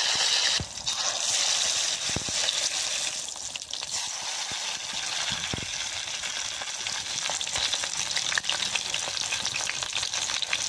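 Besan-battered pumpkin-leaf egg fritters deep-frying in hot oil in a karahi: a steady dense sizzle with scattered small pops, loudest just at the start as the fritters are dropped into the oil.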